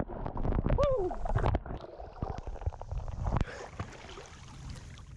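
Water splashing and gurgling close to the microphone, with a brief falling voice-like tone about a second in. The water sound gradually fades out near the end.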